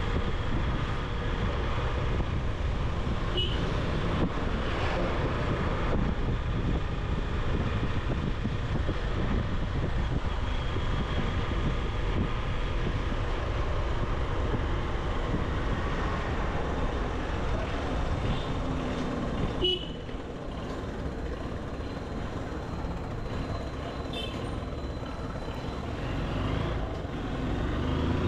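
Motorcycle riding through traffic: steady engine and road noise, with a few short horn beeps. The noise eases a little about two-thirds of the way through and builds again near the end.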